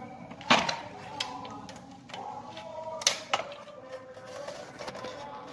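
A few sharp clicks and taps of hand tools, pliers and a screwdriver, working on the terminals of indicator lamps set in a steel panel plate. The loudest click is about half a second in, and two more follow a little after three seconds.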